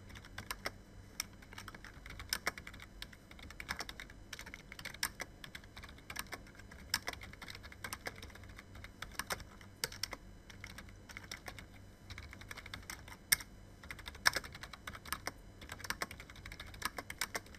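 Typing on a computer keyboard: irregular runs of key clicks, several a second, broken by short pauses.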